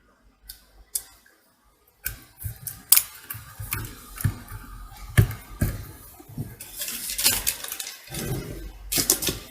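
Small metal tools and parts handled and set down, a string of irregular clinks and clicks. A short quiet gap comes about a second in, and the clinks are busiest near the end.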